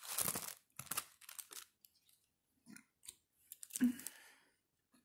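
Sheet of printer paper rustling and rubbing as it is handled and pressed flat by hand, in several short crackly bursts, the loudest about four seconds in.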